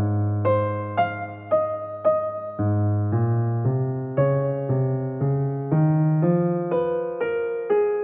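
Background piano music: a melody of struck notes, about two a second, over held bass notes.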